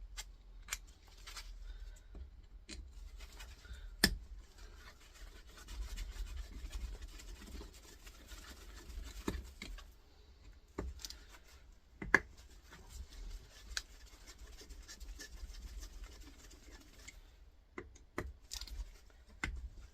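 Handling noise while working on a small compressor: soft scraping and rubbing with a few sharp, isolated knocks and clicks scattered through, the loudest about four seconds in and again about twelve seconds in.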